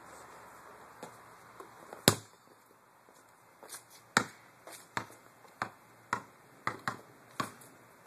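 Soccer ball being kept up in the air, each touch giving a sharp thud. One loud touch comes about two seconds in, then a run of about seven more, roughly every half second.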